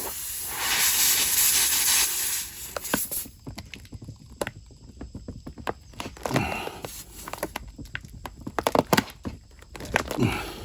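A steady hiss for about the first three seconds, then scattered light clicks and knocks from a tire plug kit's hand tools being worked into a small mower tire.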